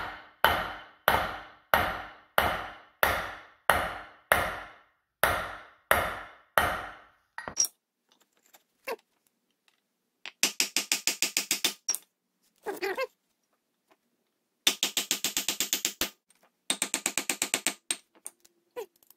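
Steady hammer blows, about one and a half a second, on a steel punch driving the seized, rust-galled shaft out of a John Deere G's Delco-Remy distributor housing; each strike rings briefly. The blows stop about seven seconds in, and later come several short bursts of rapid clicking.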